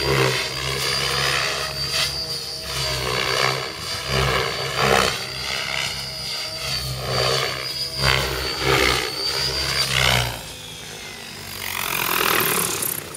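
Radio-controlled helicopter flying overhead: a steady low rotor drone with a high whine, the blade noise swelling and sweeping in pitch every second or two as it manoeuvres. It turns much quieter about ten seconds in.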